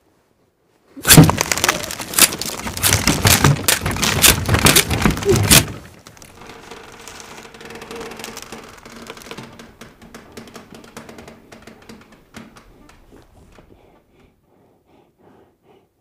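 A sudden, loud burst of banging and cracking, like things being smashed, starts about a second in and lasts about five seconds before cutting off. A much quieter crackling with a faint low hum follows and fades away.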